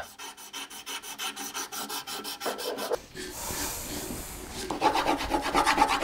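A narrow strip of sandpaper drawn quickly back and forth through the carved openings of a small wooden pendant, making rasping strokes about five a second, with a smoother steady rub for a moment midway.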